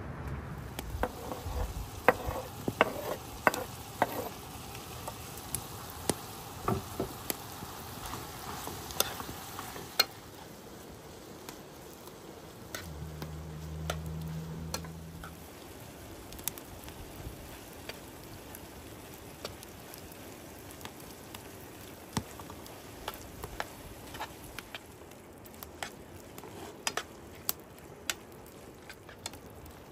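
Diced vegetables and meat sizzling in a frying pan over a wood fire, with sharp clicks and taps as a spoon stirs them. The clicks come thickest in the first third.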